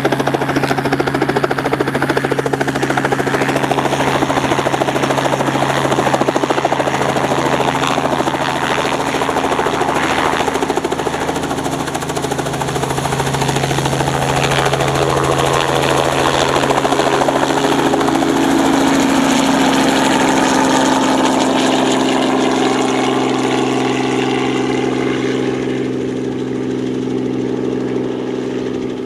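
Helicopter engine and rotors running, a loud steady drone with an even hum beneath; it eases slightly near the end.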